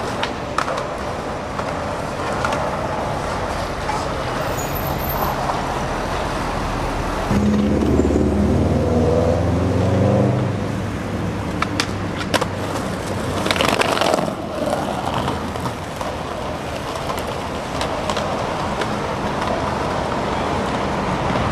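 City street traffic with skateboard wheels rolling on a concrete sidewalk. A heavy vehicle's engine passes, loudest from about seven to ten seconds in, and a few sharp clacks of the board follow a couple of seconds later.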